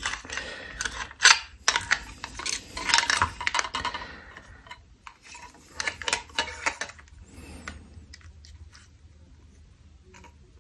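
Plastic and metal parts of a Nest thermostat being handled and pressed together: a run of clicks and light clatter over the first four seconds, then a few more clicks about six to seven seconds in.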